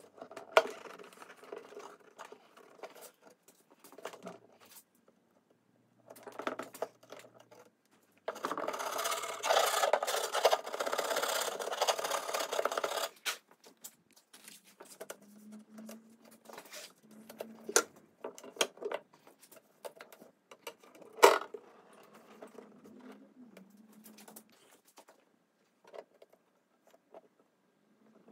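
Hand work with tools on the wooden top of a cabinet: scattered clicks and knocks, a steady scratchy noise lasting about five seconds near the middle, and one sharp knock a little later.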